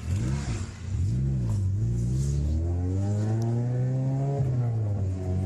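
Honda K20 four-cylinder engine blipped a few times, rising and falling in pitch. It then accelerates hard with a steadily climbing pitch, with a brief dip about four and a half seconds in as it changes gear.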